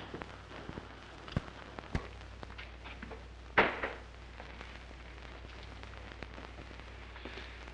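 Worn optical film soundtrack: a steady low hum with scattered clicks and pops, and one louder knock about three and a half seconds in.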